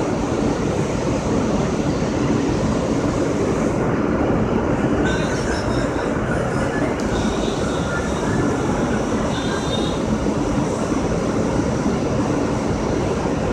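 Steady rumbling noise inside a New York City subway car standing still on the elevated tracks, with faint high whistling tones midway through.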